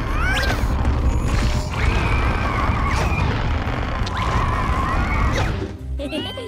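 Cartoon sound effects: a constant low rumble with crashing thuds, and over it two long, high, wavering cartoon ant cries. It quietens near the end.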